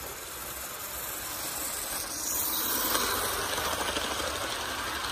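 HO-scale model train running on the layout track: the steady rushing whir of its wheels and motor, which swells as the boxcars pass close by about two to three seconds in and then eases off slowly.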